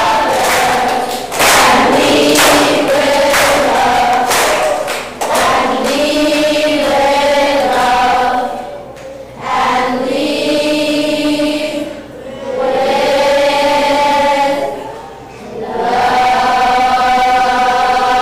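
Children's choir singing, with sharp rhythmic beats under the first few seconds, then long sustained phrases separated by brief pauses, ending on a long held note.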